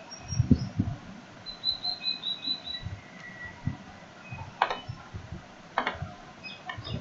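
Background room sounds: several low thumps, a quick run of faint high chirps about two seconds in, and two sharp clicks in the second half.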